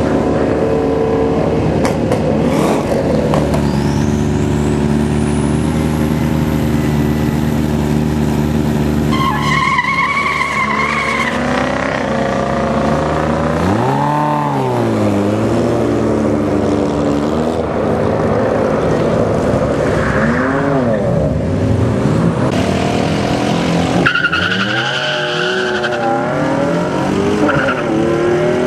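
Diesel pickup trucks drag racing. Engines run steadily at first while a high whine rises over several seconds, then from about halfway through the engines rev hard, pitch climbing and dropping through gear changes. Near the end an engine revs up and down close by.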